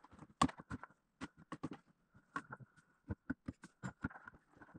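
Sharp wooden knocks and clatter, several a second and irregular, from firewood being handled and knocked about at a camp fire pit.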